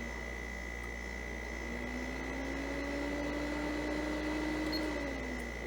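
Air conditioner running on its high fan setting: a steady hum with a constant high whine, and a lower drone that slowly rises in pitch from about two seconds in, then drops back near the end. Its sound reminds of a semi-truck.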